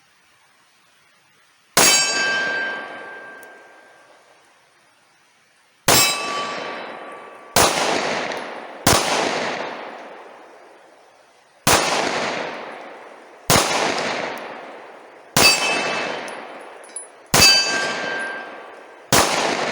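Smith & Wesson M&P full-size 9mm pistol firing Blazer 115-grain full metal jacket rounds: nine single shots at an uneven pace, one to four seconds apart. Each shot has a long ringing, echoing decay.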